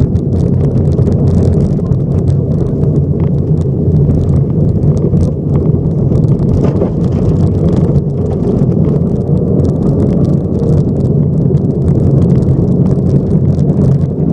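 Subaru rally car's flat-four engine running hard on a gravel stage, heard from inside the cabin, easing off as the car slows for a corner and then pulling up through the gears as it speeds up again. Loose gravel rattles against the underbody throughout.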